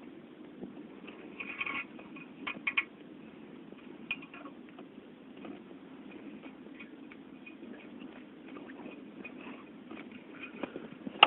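Scattered light clinks and clicks of hand tools and metal parts as exhaust hardware is worked on, a little cluster about two seconds in, over a steady low background hum.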